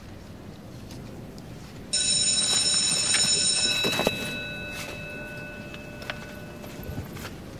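School bell ringing, starting suddenly about two seconds in as a loud, shrill steady tone of several pitches together; the top of it cuts off after about two seconds while the lower pitches ring on and fade over the next few seconds. A few short knocks come under it, the loudest about four seconds in as a book is picked up off the table.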